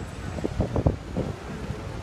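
Wind buffeting the phone's microphone, with a few sharp gusts in the first second, over a low rumble of street traffic.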